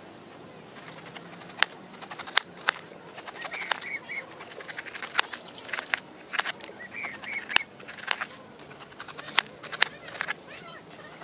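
A large kitchen knife slicing the rind off a whole pineapple, cutting down through the tough skin and knocking on a plastic cutting board with sharp, irregular clicks. A bird chirps in the background, with a short run of notes twice.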